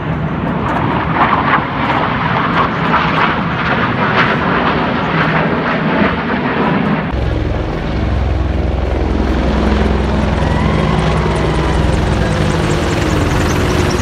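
Two military jets passing overhead with a broad jet roar. After a sudden change about seven seconds in, a formation of military helicopters flies over with a low, steady rotor thrum.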